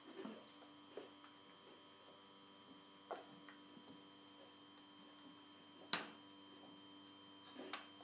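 Faint steady hum of a running belt-type 3D printer, with a handful of sharp clicks, the loudest about six seconds in.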